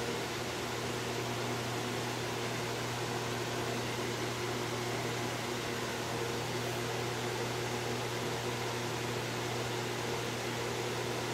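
Small 9-inch Massey box fan running steadily, a motor hum under the even rush of air from the blades. The motor is freshly oiled and running without its former trouble.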